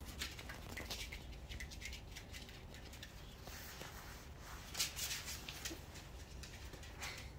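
A puppy scuffling with a plush toy on a string, its paws and the toy scraping and tapping on cardboard in a scatter of light scuffs and clicks, one a little louder about halfway through.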